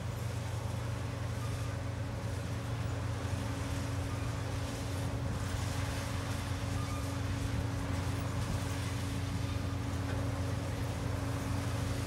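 Sperry-New Holland TR86 combine running while harvesting soybeans: a steady low machine drone with a constant hum, growing slightly louder as the combine comes closer.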